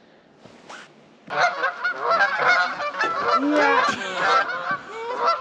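A flock of geese flying overhead, honking: quiet at first, then from about a second and a half in many loud calls overlapping.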